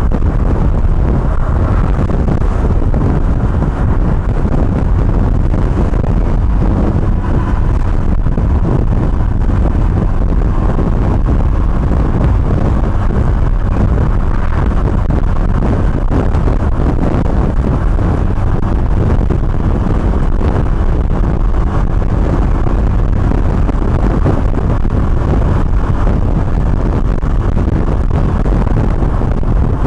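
G-Moto Cross X PRO 125 cc fuel-injected moped running steadily while riding, under a low rumble of wind on the microphone.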